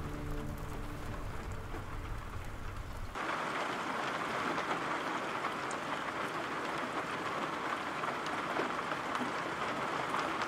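Steady rain falling, an even hiss with scattered drop ticks, coming in fuller about three seconds in.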